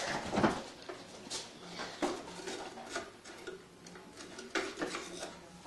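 Scattered light clicks and knocks as a refrigerator's freezer door is opened and its contents handled.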